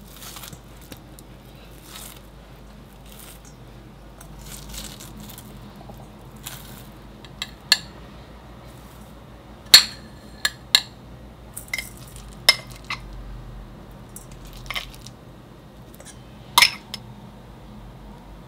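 Soft rustling of hands tearing cooked beef in a stainless steel bowl, then a series of sharp clinks of small glass containers against the bowl as seasonings are poured in, the loudest about ten seconds in.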